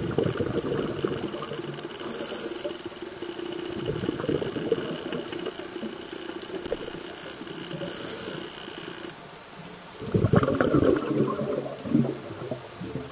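Underwater scuba diver's exhaled bubbles gurgling from the regulator in bursts, the loudest about ten seconds in. A faint steady hum runs under them and stops about nine seconds in.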